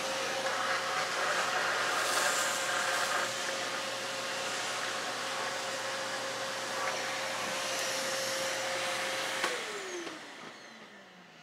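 Titan T1400 canister vacuum running with a steady motor hum and suction noise as its floor tool cleans a tile floor. About nine and a half seconds in it is switched off and the motor winds down, its pitch falling as it fades.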